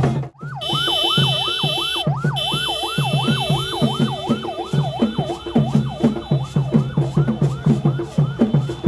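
Police vehicle siren wailing in a fast yelp, its pitch sweeping up and down about three times a second, over a steady drumbeat.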